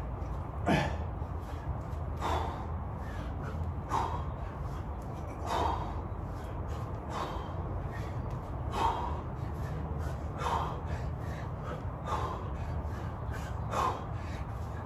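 A man's short, loud exhalations, one about every second and a half, with fainter breaths between: the breathing rhythm of a set of 32 kg kettlebell swings.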